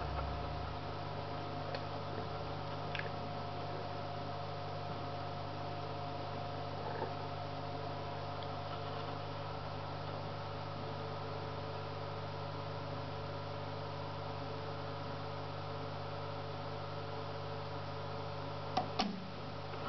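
Steady electrical mains hum. Near the end there are two sharp clicks in quick succession.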